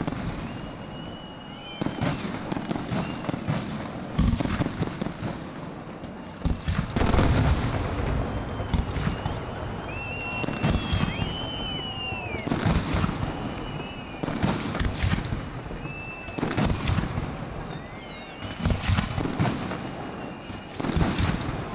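Aerial fireworks display: a continuous run of shell bursts at irregular intervals, a few heavier booms among many sharper bangs, with several short high whistling glides between them.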